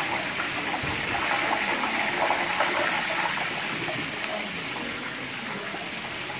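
Kebabs frying in hot oil in a large, wide pan: a steady sizzle with faint scattered crackles.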